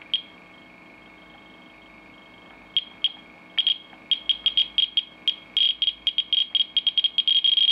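Radiation Alert Monitor 4 Geiger counter chirping in audio mode, one chirp per detected decay: a few scattered chirps at first, then quickening to a rapid run of chirps as a uranium mineral sample is held against the detector, a sign of high radioactivity.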